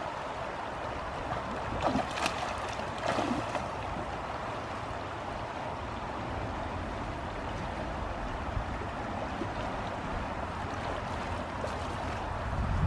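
River water rushing steadily, with a few short splashes about two and three seconds in from a hooked Atlantic salmon thrashing in shallow water.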